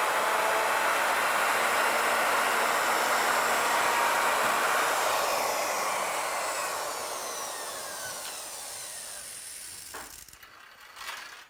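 Router on an ornamental milling machine, fitted with a 1/2 inch core box bit, running at full speed. About five seconds in it is switched off, and its whine falls steadily as the motor spins down over several seconds. A click comes near the end.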